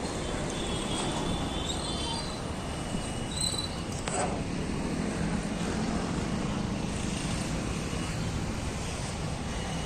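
Steady road traffic noise: vehicle engines running and passing, with a few brief faint high tones and a short click about four seconds in.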